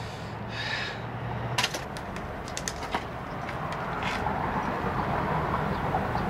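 Steady low hum of an idling car engine under outdoor background noise, with a few light sharp clicks between about one and a half and three seconds in.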